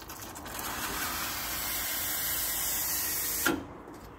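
Steam hissing from the steam wand of a Nuova Simonelli Appia 2 espresso machine as its steam lever is opened, building up over the first second. It is shut off with a click about three and a half seconds in.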